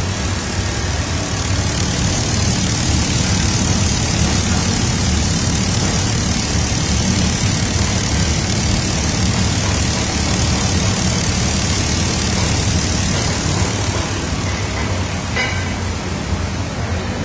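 Industrial tunnel microwave oven running: a steady machine noise with a low hum under a wide hiss, and a brief faint higher sound near the end.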